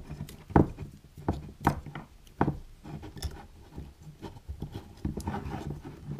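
Small metal thermostat and its wires being handled while red electrical tape is wrapped around a wire: a series of sharp knocks and clicks, with a quicker run of small clicks near the end.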